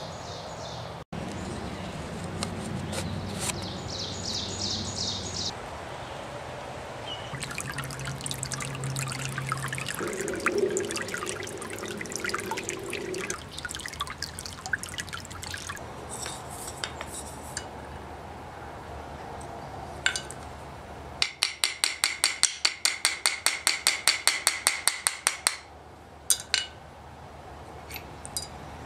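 Stream water trickling over stones. Later comes a quick, evenly spaced run of about twenty ringing metallic taps, about five a second for some four seconds, louder than the water.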